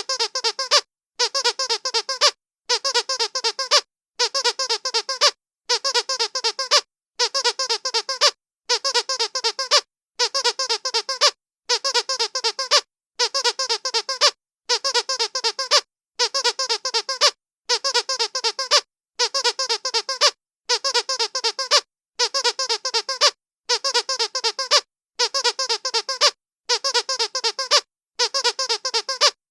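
Rubber dog squeaky toy being squeezed over and over: runs of rapid high squeaks about a second and a half long, broken by short silent gaps and repeating evenly as a loop.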